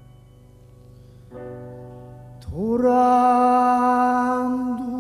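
Piano notes ringing out softly, with a new chord struck about a second and a half in. Then a Korean sori-style male singer comes in loudly about halfway through on one long held note that bends up into pitch, with the piano continuing underneath.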